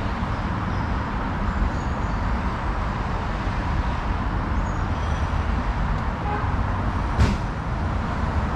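Steady city ambience with a low traffic rumble, and one sharp knock about seven seconds in.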